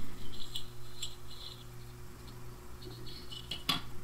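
Small clicks and scrapes of thin sheet-metal parts being handled and pried as the plate is pulled off a 6L6G beam pentode's electrode assembly, with one sharper click near the end. A low steady hum runs underneath.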